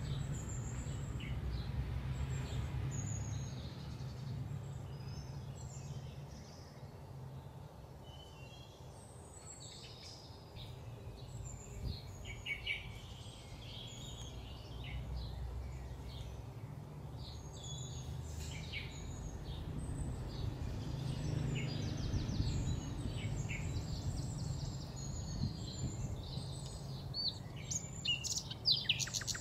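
Small birds chirping and twittering again and again over a steady low background rumble.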